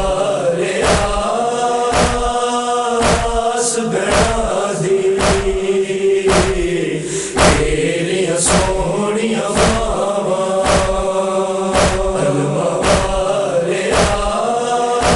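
Chorus of men's voices chanting a long, held refrain of a noha, over matam: hands striking chests in a steady beat about once a second.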